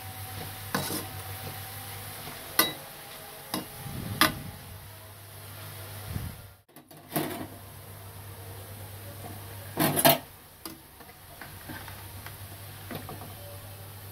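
Metal spatula scraping and knocking against a metal pan while frying sliced onions are stirred in oil. There are sharp knocks every second or two, the loudest about ten seconds in, over a steady low hum.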